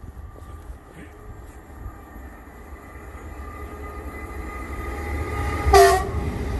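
Electric train approaching, its low rumble and faint motor whine growing steadily louder. A short, sharp, loud blast comes near the end.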